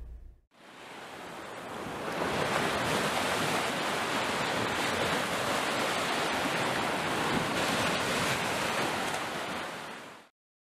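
Ocean surf washing onto a beach: a steady rushing wash of waves that fades in over the first two seconds and cuts off suddenly near the end.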